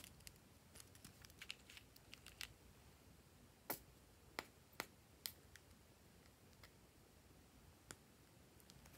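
Near silence with scattered soft plastic clicks and taps from fingers handling and squeezing a lip-gloss tube, a dozen or so, the sharpest coming in a cluster near the middle.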